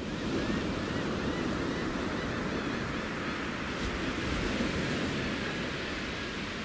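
Ocean surf: waves washing in a steady rush that swells up at the start, with a few faint short high calls over it.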